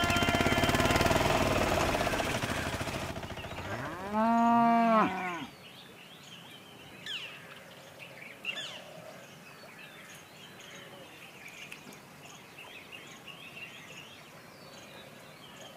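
A cow moos once about four seconds in: a single long call whose pitch rises and then falls. Before it, loud traffic noise cuts off abruptly about three seconds in. Faint bird chirps follow the moo.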